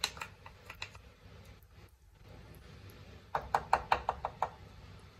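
Wooden spatula knocking against the side of a non-stick kadai while stirring a thick curry. There are a few light clicks at the start, then a quick run of about eight knocks a little past the middle.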